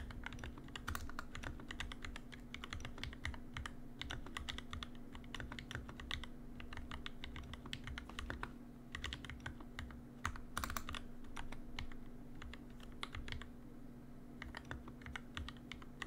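Rapid, continuous typing on an NK65 Entry Edition mechanical keyboard fitted with lubed, filmed Durock L2 linear switches, a dense run of keystrokes with a faint steady hum underneath.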